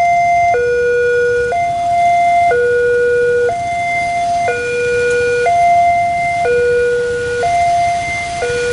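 Railway level-crossing electronic warning alarm sounding from a horn loudspeaker on the crossbuck pole. It is a two-tone hi-lo signal that switches pitch about once a second, warning that a train is approaching and the barriers are closing.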